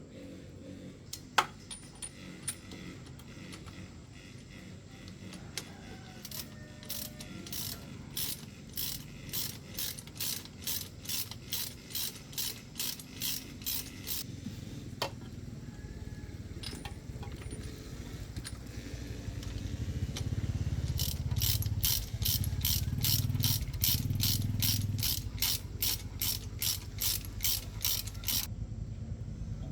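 Hand ratchet wrench clicking as it is worked back and forth on a fastener, in two runs of steady, evenly spaced clicks with a pause between them: slower at first, faster later. A sharp knock comes about a second in, and a low rumble sits under the second run.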